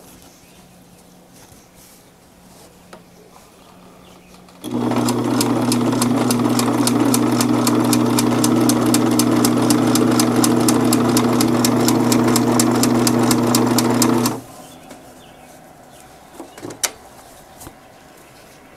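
A household Singer Limited Edition sewing machine stitching through upholstery fabric and piping. About five seconds in it starts, runs at a steady speed with an even beat of needle strokes for about ten seconds, then stops. A sharp click follows near the end.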